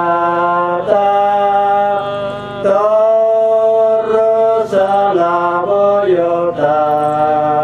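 A man singing a slow, chant-like melody into a microphone, holding long notes that step up and down in pitch every second or two.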